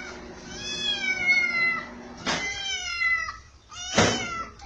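Kitten meowing three times, each a high-pitched call falling in pitch, with a sharp knock about two seconds in and a louder one near the end.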